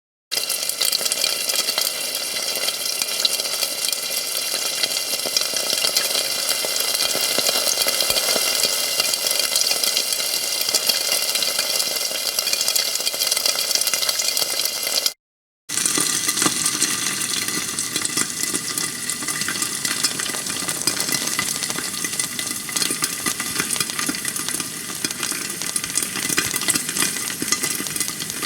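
Steak sizzling in a frying pan under a closed lid: a steady, dense crackle of spitting fat. It cuts out for about half a second about halfway through, then carries on.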